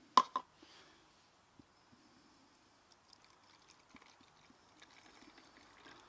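Two sharp clicks just after the start, then methylated spirits being poured faintly from a bottle into a small plastic measuring tub, with scattered light ticks.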